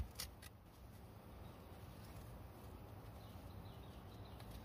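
Quiet forest ambience with a steady low rumble. Three sharp clicks or knocks come in the first half-second, and a few faint bird chirps come near the end.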